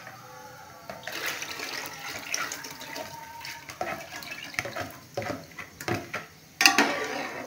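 A thin gram-flour and buttermilk batter pours from a bowl into a pot of fried masala and splashes in, starting about a second in, with a steel spoon clicking and scraping against the bowl. The loudest pour comes near the end as the bowl is tipped right over.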